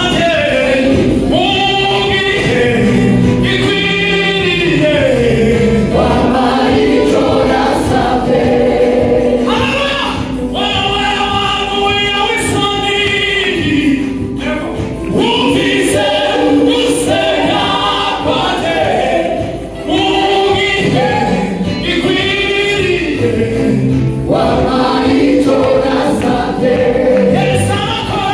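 Live gospel worship music: a group of singers on microphones singing together over a keyboard, continuous and loud, with a brief dip about twenty seconds in.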